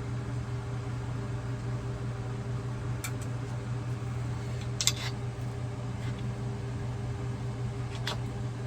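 Steady machine hum, like a fan or motor running, with three light clicks of parts being handled, the sharpest about halfway through.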